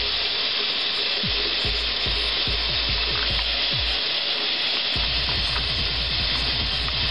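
Bathroom sink faucet running steadily, its stream pouring into a basin that is filling with water.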